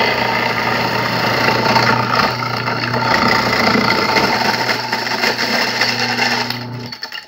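Electric ice crusher running with ice pressed down into its blades: a steady motor hum under a dense crushing and grinding noise, which cuts off near the end.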